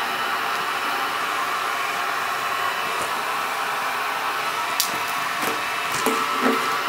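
Steady, even background hiss, with a few light taps and rustles near the end as cotton fabric is handled and smoothed by hand on a wooden table.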